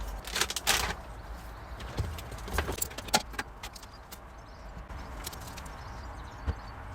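Small items being handled and pulled out of a car's interior: irregular rattles, rustles and sharp clicks, with a longer rustling burst about half a second in.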